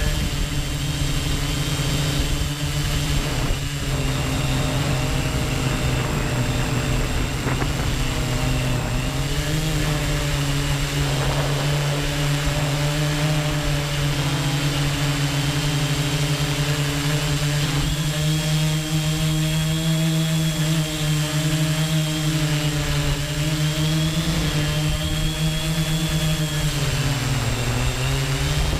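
Quadcopter drone's electric motors and propellers running in flight, a steady pitched buzzing hum whose pitch shifts a little as the drone manoeuvres and dips briefly near the end.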